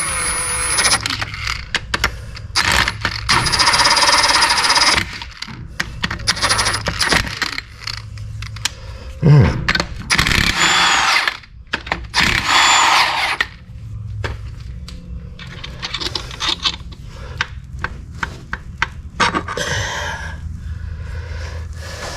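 Handheld power tool run in short bursts of a second or two, about eight times, as the engine's connecting-rod cap bolts are taken off to get at the bearings, with sharp metal clinks of tools and parts between bursts.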